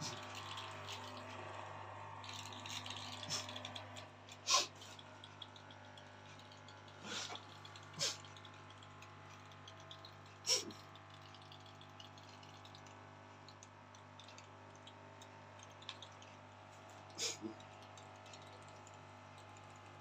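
The small spray pump of an Arnica Hydra Rain Plus washing vacuum runs with a steady low hum while priming. A handful of sharp water spits and drips come from the nozzle. It is pumping weakly.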